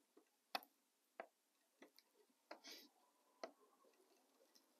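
Faint, scattered small clicks, about five over a few seconds, with one brief scrape, as a small hand drill is twisted by the fingers to bore a hole in a model railway turnout's throw bar.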